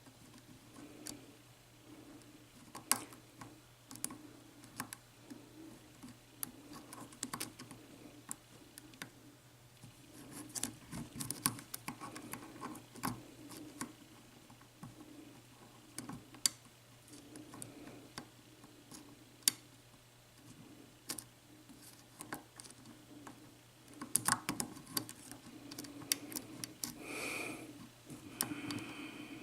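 Faint, irregular small metal clicks and scrapes of a lock pick and tension wrench working the pin stacks inside a Corbin Russwin interchangeable-core lock cylinder.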